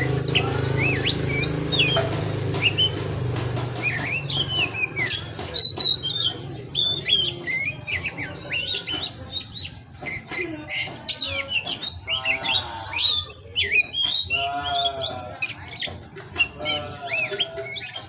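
Oriental magpie-robin (kacer) singing a long, varied song of rapid whistled phrases, sweeping notes and trills, with a few harsh rasping notes later on. A low hum fades out in the first few seconds.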